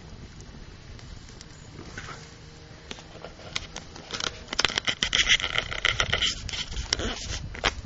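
Open wood fire crackling with scattered pops, turning into a louder, denser spell of crackling and hiss from about four and a half seconds in until near the end, over a low rumble.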